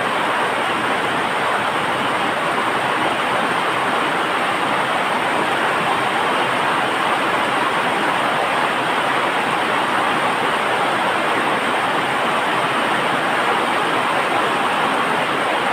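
A loud, steady rushing noise with no distinct events and no change in level.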